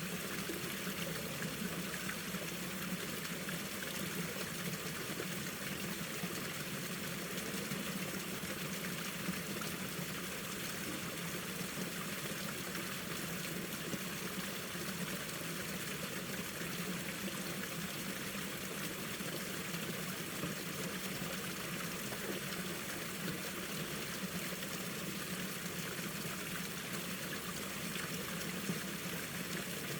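Mountain stream water flowing and trickling over rocks in winter, a steady, unbroken rush.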